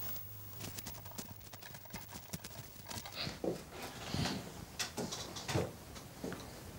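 Quiet, irregular light knocks and soft rustles of someone moving and handling things on a floor mattress over a wooden floor, more frequent from about halfway through.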